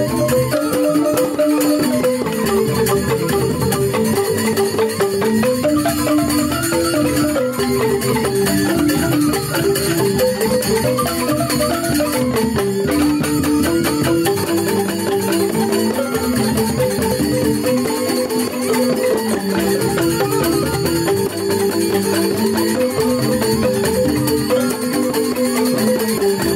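Balinese joged bumbung gamelan playing: bamboo xylophones in fast, repeating interlocking figures, with a bamboo flute (suling) and percussion.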